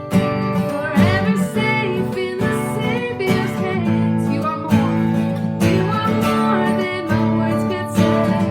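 Music led by strummed acoustic guitar, with a melody line over it that may be sung.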